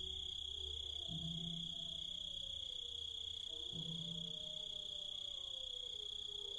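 Crickets chirring in a steady, unbroken high tone, the loudest sound throughout, with wolves howling faintly underneath in long, slow rising and falling glides. A low drone sounds beneath them and breaks off twice.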